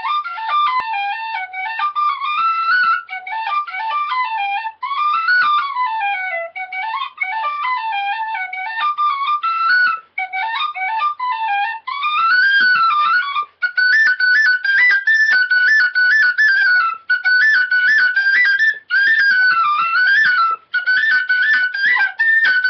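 Tin whistle playing a melody: the tune moves up and down through its lower notes for the first half, then from about halfway sits on higher, held notes with short dips and quick turns, with brief breaks for breath every couple of seconds.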